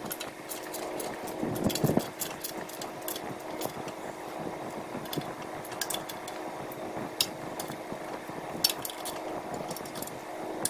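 Irregular metallic clinks and clicks of hand tools on the brass exhaust-manifold nuts of a two-cylinder snowmobile engine as the manifold is fastened down, over a faint steady hum.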